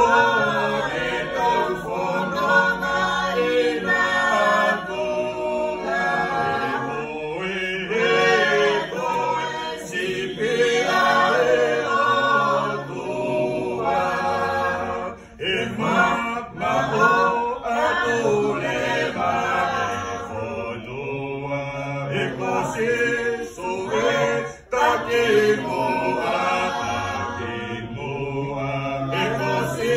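Choir singing unaccompanied, with two brief breaks about 15 and 25 seconds in.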